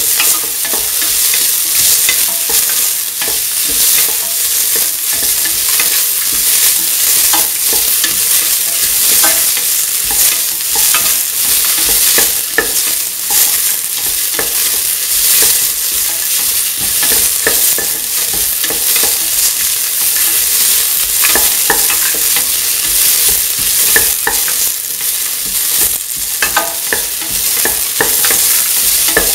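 Sliced shallots and onion sizzling in hot oil in a metal pan, with a spoon scraping and knocking against the pan many times as they are stirred and sautéed.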